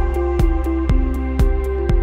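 Background music: held instrumental notes over a steady beat of about two strokes a second.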